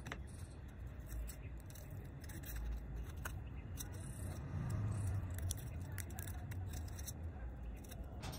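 Quiet handling noises, a few small clicks and rubs as a small motor is pressed into a foam pod, over a low steady background rumble.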